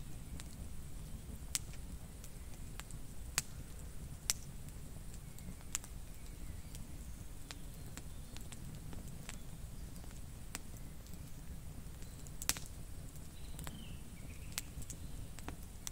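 Wood campfire crackling: sharp, irregular pops over a low steady rumble.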